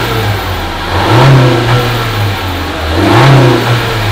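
Turbocharged Honda Civic four-cylinder engine revved twice from idle. Each rev climbs and falls back, the first about a second in and the second about three seconds in. The revving shows off a freshly fitted blow-off valve.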